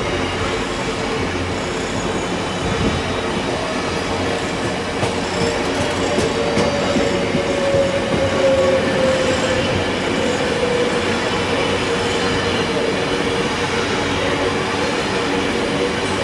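Loaded biomass hopper wagons of a freight train rolling past at speed, with continuous wheel-on-rail rumble and clatter. A steady wheel squeal sits over it and is strongest about halfway through.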